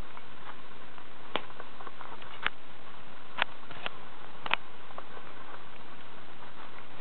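A hard plastic toy clicking and knocking as a beagle chews and paws at it: a handful of sharp, irregular clicks over a steady hiss.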